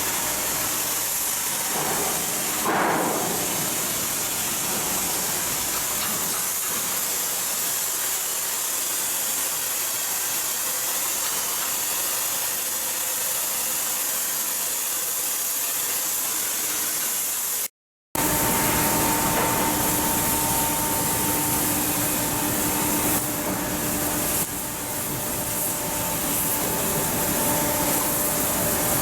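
Steady hissing noise of shipbuilding work. After a sudden cut about two-thirds of the way in, a machine hum with a few steady tones joins the hiss.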